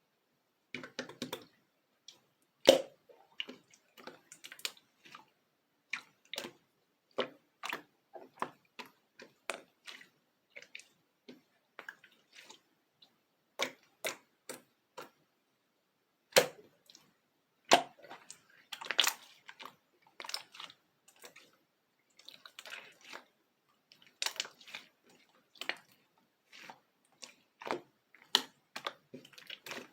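Black slime being pressed and stretched by hand, giving irregular sticky clicks and small wet pops with short gaps between them.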